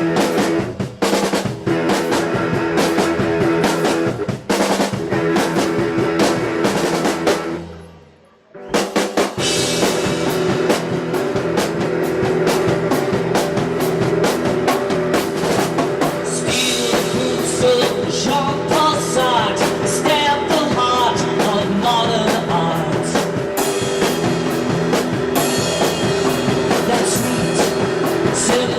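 Rock band playing a song, with drum kit and guitar. The music drops out for under a second about eight seconds in, then comes back in.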